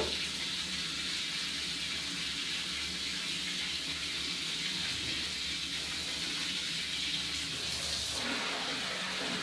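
Water running steadily from a tap into a basin of laundry rinse water, a constant hiss that shifts briefly about eight seconds in.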